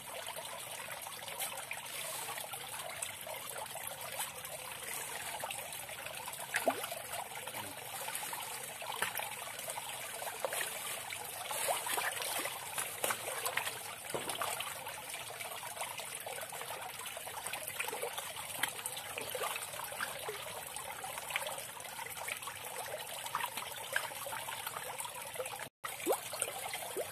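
Steady trickle of water running into an aquaponics fish pond, with faint scattered ticks.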